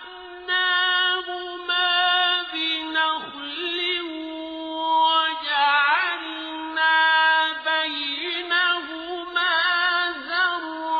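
Quran recitation by a male reciter in the slow, melodic tajweed style: a high, long-held voice with vibrato and ornamented pitch turns, drawing out each phrase, with a few short pauses between phrases.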